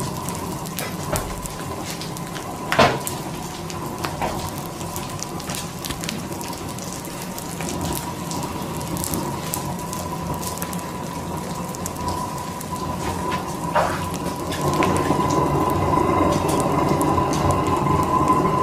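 Burning laptop crackling and snapping in open flames, with a sharp pop about three seconds in and another near the end; the fire grows louder over the last few seconds.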